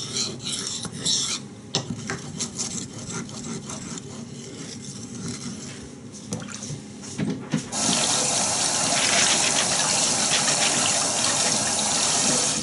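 Water running steadily from a tap, starting abruptly about two-thirds of the way in and stopping at the end, with light clicks and handling noises before it.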